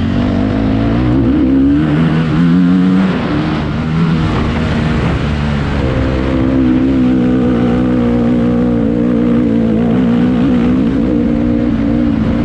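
Honda CRF250R motocross bike's single-cylinder four-stroke engine running hard under load. It rises in pitch over the first few seconds, drops back around three to four seconds in, then holds fairly steady from about six seconds on.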